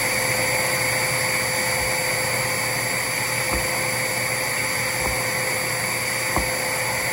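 DeWalt wet/dry shop vacuum running steadily at full speed: a constant whine over a motor hum, with a few light knocks in the second half.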